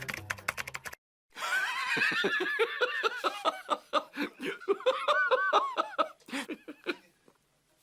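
A person laughing heartily in a long run of quick, pulsing "ha"s, starting about a second in and dying away after about five seconds. The first second holds the clicky tail of a short music intro.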